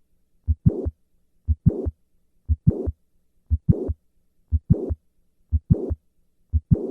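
Heart sounds of mitral valve prolapse heard with the patient standing: a heartbeat about once a second. In each beat the first heart sound is followed by a late-systolic murmur that grows louder up to the second heart sound.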